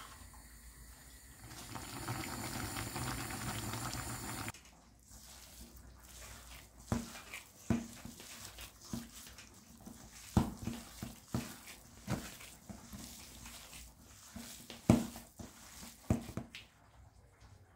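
Water running for about three seconds, then a string of light knocks and clinks, like things being handled and set down.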